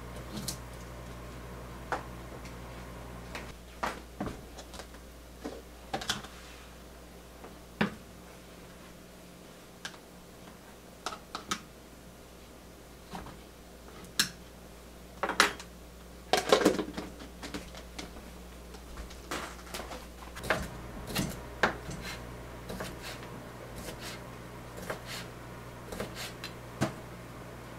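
Kitchen prep sounds over a steady low hum: scattered clinks and knocks of a metal tray, a plastic food container and a fork being handled. Over roughly the last third, a kitchen knife slices sausage on a wooden cutting board, knocking about twice a second.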